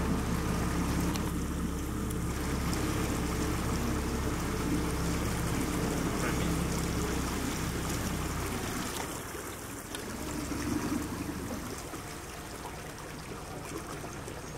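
A boat's motor running steadily at low revs alongside water noise; the motor hum cuts out about eight and a half seconds in, leaving water trickling and lapping.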